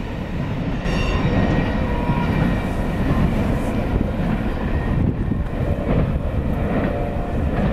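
CSX double-stack intermodal freight train rolling past, a steady rumble of wheels on rail with thin high ringing tones, strongest about a second in.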